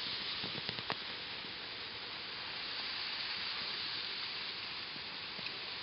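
Two dogs scratching rapidly at loose dirt with their front paws, a steady hissing scrape of soil being dug and flung, with a few sharp clicks of claws on grit in the first second.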